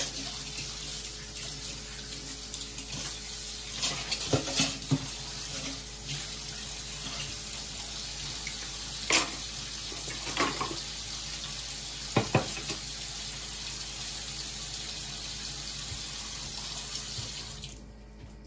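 Kitchen faucet running steadily into the sink while dishes are washed, with a few sharp clinks and knocks of dishes. The water is shut off near the end.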